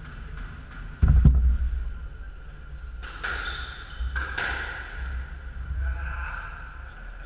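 Squash rally on a wooden-floored court: a loud thud about a second in, then two sharp hits of the ball about three and four seconds in, each with a brief ringing echo off the walls.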